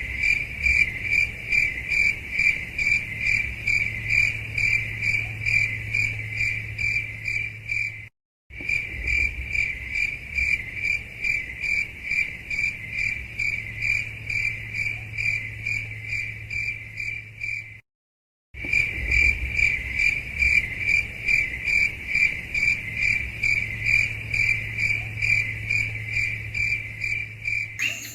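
A cricket chirping in a steady, rapid pulse of one high tone, about four pulses a second. It drops out twice for a brief moment of dead silence.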